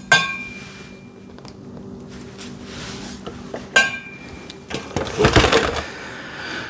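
Metal parts being handled while a MIG welder's cables are connected: two sharp metallic clinks that ring briefly, about four seconds apart, then about a second of clattering and scraping, over a low steady hum.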